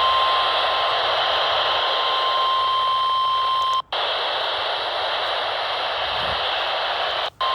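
NOAA Weather Radio warning alarm tone: a steady single pitch of about 1050 Hz, received over loud radio static during the weekly alarm test. It cuts off about four seconds in with a brief dropout, and after that only the receiver's static hiss remains.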